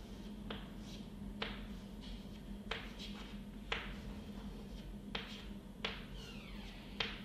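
Chalk tapping and scraping on a blackboard while small shapes are drawn: about ten sharp, irregularly spaced ticks, with a faint falling squeak around two-thirds of the way through.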